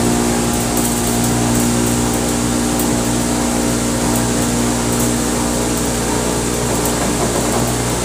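Home-built cotton candy machine running: the electric motor spinning the heated head gives a steady, even hum with a hiss over it.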